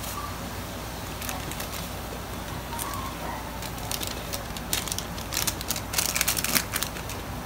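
Soup at a rolling boil, bubbling steadily. From about four seconds in, a foil sachet of Knorr sinigang tamarind mix crinkles sharply as it is squeezed and shaken empty into the pot; this is the loudest sound, easing off near the end.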